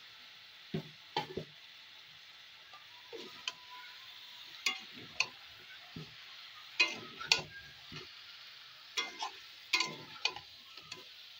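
A spatula stirring chicken, potatoes and jackfruit in a pan, with irregular scrapes and knocks against the pan every second or two over a steady sizzle of frying.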